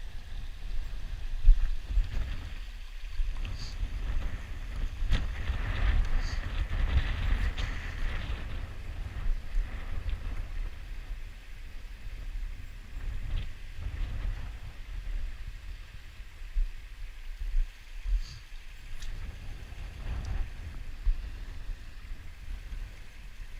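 Wind buffeting the microphone in a gusty low rumble, over the rush of a shallow, fast-flowing river, with a few sharp clicks.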